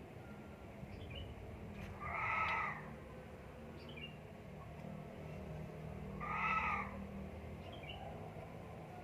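An animal cries twice, about four seconds apart, each call lasting well under a second. Faint short chirps sound in between.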